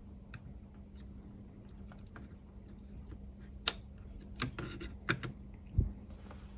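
Light plastic clicks and taps as an electrolytic capacitor is seated in a component tester's ZIF socket, the socket lever clamped and the test button pressed. The clicks are scattered, with the sharpest about halfway through and a dull knock near the end.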